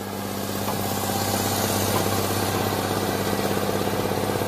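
Heavy truck engine running at a steady pitch, its level swelling a little about a second in.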